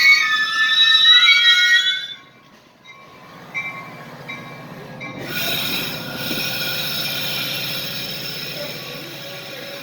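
Metra commuter train wheels squealing on the rails with several high, shifting tones that stop about two seconds in. From about five seconds, a rushing train noise comes in with a fainter steady squeal over a low rumble.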